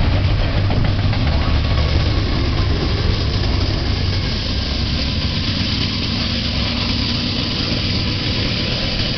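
BNSF diesel locomotive running as a mid-train distributed power unit (DPU) passes close by, its engine drone mixed with the rumble of the double-stack cars. The low rumble eases a little about halfway through as it moves off.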